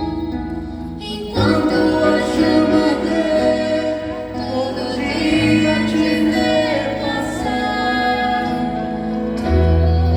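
Singing with instrumental accompaniment: a sustained melodic vocal line over held chords and bass notes, which swell and change about a second and a half in.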